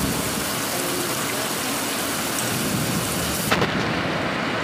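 Steady heavy rain, an even hiss. About three and a half seconds in there is a knock, and the rain sounds muffled for a second or so after it.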